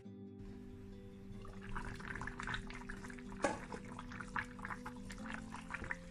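Pot of chicken and potato pepper soup simmering, a fine crackly bubbling that sets in about a second and a half in, with a single sharp knock about halfway through. Soft background music with held notes plays underneath.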